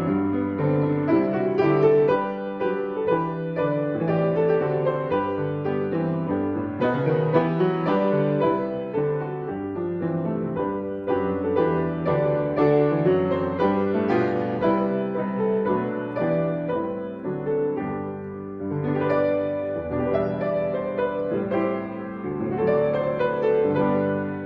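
Piano playing a piece with sustained chords that change steadily throughout.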